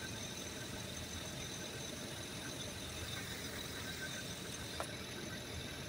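Steady low rumble of cars idling at the lowered level-crossing barriers, with a faint steady high whine and a small tick about five seconds in.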